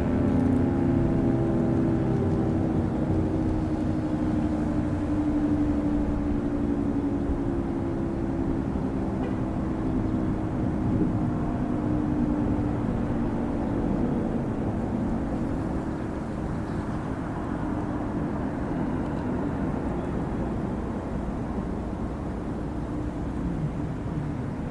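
American Signal 3T22 rotating outdoor warning siren winding down at the end of its attack signal: its tone slowly falls in pitch and fades away over about fifteen seconds, leaving a steady low rumble of background noise.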